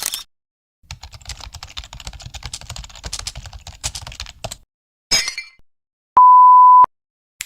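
A string of separate sound effects: about four seconds of rapid clattering clicks like fast typing on a computer keyboard, a short noisy burst, then a loud steady beep lasting under a second.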